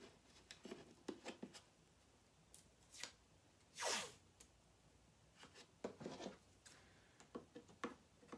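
Blue painter's tape pulled off its roll in one short rip about four seconds in, amid light taps and rubs as the tape is handled and pressed down on a wooden frame. A few short scissor snips near the end as the tape is cut.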